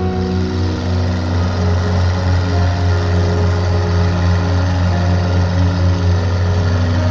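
A small boat's engine running steadily at speed, with a strong low hum. Soft piano music plays underneath.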